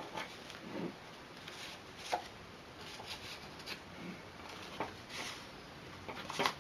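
Cardstock pages and fold-out flaps of a handmade mini scrapbook album being turned and opened by hand: soft paper rustling with a few light taps and flicks, the sharpest near the end.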